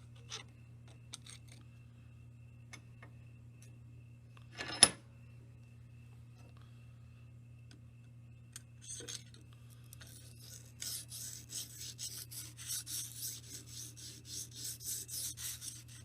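A few small clicks and one sharp knock about five seconds in, then, from about ten seconds in, a Lansky sharpening stone on its guide rod stroked quickly along a clamped knife edge, rasping at about three strokes a second.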